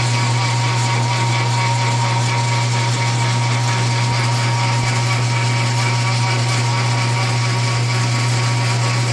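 Machine tool's electric motor and drive running steadily: a loud, even low hum with a faint high whine above it.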